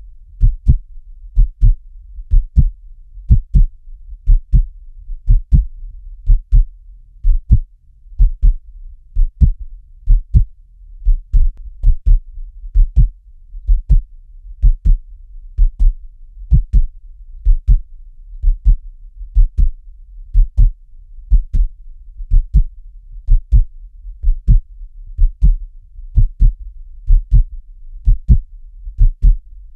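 Heartbeat sounding a steady, even rhythm of deep double thumps (lub-dub), about one beat a second, over a faint low hum.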